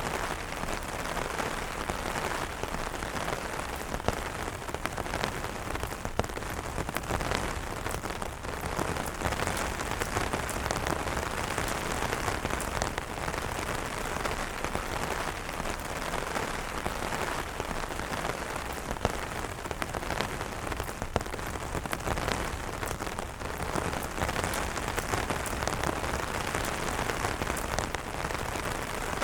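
Steady rain falling on umbrellas, a dense even hiss with single drops striking sharply here and there.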